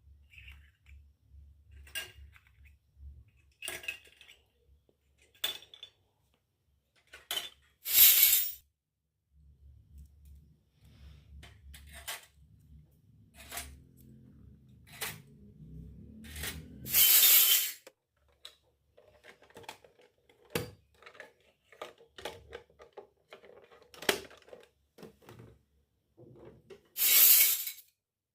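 Miniature stainless steel toy pots, plates and utensils clinking and clattering as they are handled: scattered light clicks and taps, with three louder, longer clatters spread through.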